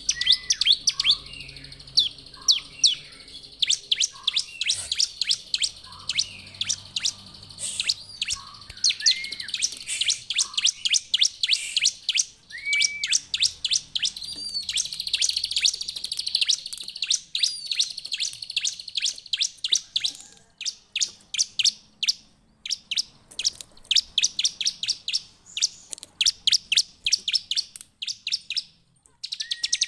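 Bar-winged prinia (ciblek) singing vigorously: a fast, unbroken run of sharp, high chirps and ticking notes, mixed in the first half with a few lower slurred whistles. About halfway through it breaks into a continuous trill; near the end it sings in short rapid bursts with brief pauses.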